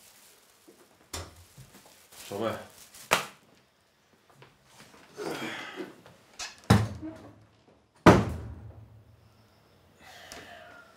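A wooden door banging shut about eight seconds in, the loudest sound, with a low boom dying away after it. Several sharper knocks and handling sounds come before it.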